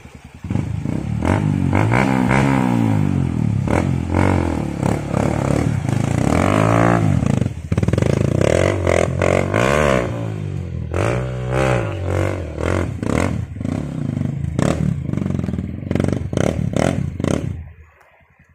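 Off-road dirt bike engine revving hard again and again, its pitch rising and falling with the throttle, with clatter and knocks over it. It starts about half a second in and cuts off abruptly near the end.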